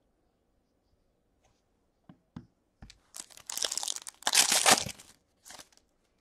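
A foil trading-card pack, a 2020-21 Upper Deck SPX hockey pack, is torn open by hand. A few light clicks of handling come first, then about two seconds of loud tearing and crinkling of the wrapper, with a shorter crinkle just after.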